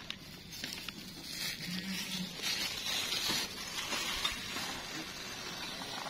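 Mealworms poured out of a plastic bag onto a plastic tray: the bag crinkles and the larvae patter onto the tray in several hissy spells.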